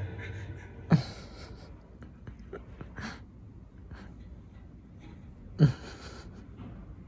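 Sleeping cat snoring: two short, loud nasal snorts about four and a half seconds apart, with faint breathing between them.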